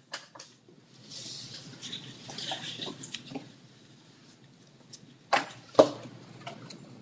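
Quiet classroom room tone with soft rustling and a brief hiss, and two sharp clicks close together about five and a half seconds in.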